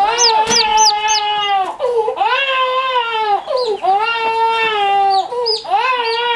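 An infant crying in about four long wailing cries. Baby poultry peep in short high chirps over it at the start and again about five seconds in.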